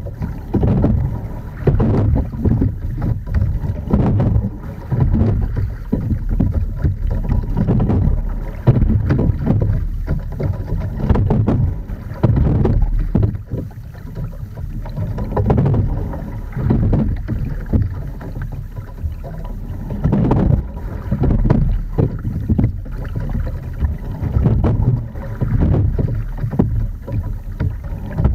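Water rushing along the hull of an Edon TS515 single scull as it is rowed steadily, swelling in a repeating rhythm about every two seconds with the strokes. Wind buffets the microphone.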